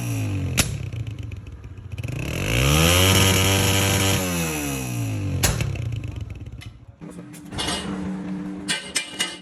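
Honda CG125 single-cylinder four-stroke engine revved and let fall back, with a sharp pop in the exhaust twice as the revs drop: backfire on deceleration. Near the end a steadier lower hum with a quick run of clicks.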